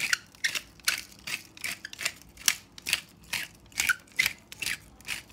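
Hand-held pepper grinder cracking black peppercorns: a regular run of short crunchy grinding strokes, a little over two a second.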